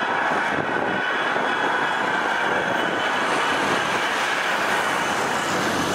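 Diesel engine of a wrecked single-deck coach running steadily as the coach drives past on the track.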